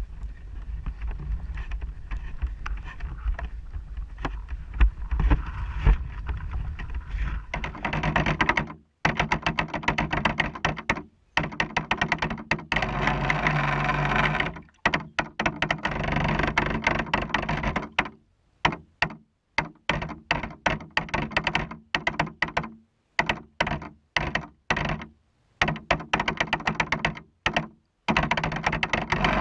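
Wind rumbling on the microphone, then, from about seven seconds in, an electric RC boat's motor driven in repeated throttle bursts. Each burst is a loud run of motor and water noise that cuts off abruptly into silence, and this happens many times, some bursts several seconds long and others brief.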